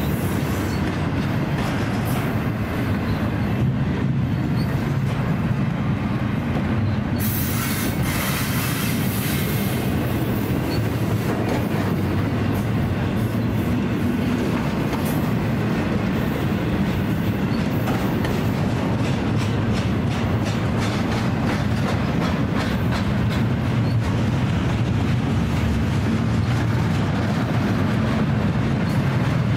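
Union Pacific double-stack intermodal container train rolling past: a steady rumble of steel wheels on rail with repeated clicking over the rail joints. A higher squeal from the wheels rises for a few seconds, about seven seconds in.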